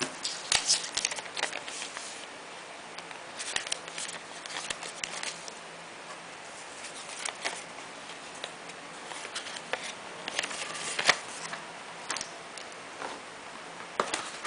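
Small plastic and paper packaging bags being handled, crinkling and rustling in irregular bursts, with a sharp tap about three-quarters of the way through.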